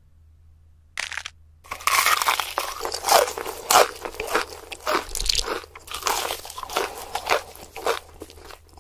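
Close-up crunchy eating: a first bite about a second in, then a long run of loud, irregular crunching chews of crispy food.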